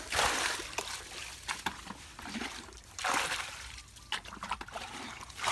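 Water bailed with a plastic bucket from a muddy ditch: a bucketful thrown out with a splash right at the start and another about three seconds later, with water trickling and sloshing in between.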